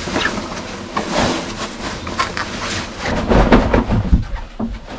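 Fabric cushion cover being pulled and worked over a foam cushion: irregular rustling and scraping of the cloth against the foam, with a few dull thumps about three and a half seconds in.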